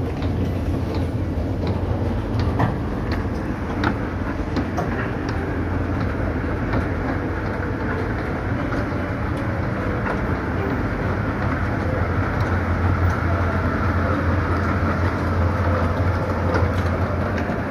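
Escalator running while carrying a rider up: a steady low mechanical rumble and hum, with scattered clicks and clacks from the moving steps, more of them in the first few seconds.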